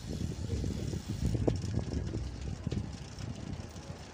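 Wind buffeting the microphone of a camera moving along a street: an uneven, gusty low rumble over a faint outdoor hiss, easing a little near the end.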